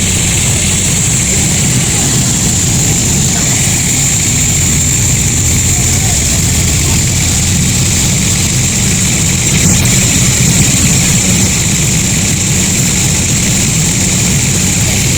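Sawmill machinery running steadily: a low rumble under a constant high whine, swelling slightly about two-thirds through.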